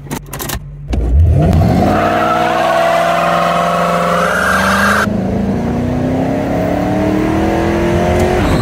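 Car engine revving and accelerating, its pitch climbing steadily, after a few sharp clicks at the start; the sound changes abruptly about five seconds in, as at an edit, and climbs again.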